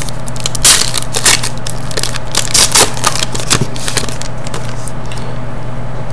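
Foil wrapper of a Panini Zenith hockey card pack being torn open and crinkled in the hands: a quick, irregular run of crackles that dies away after about four and a half seconds as the cards come out.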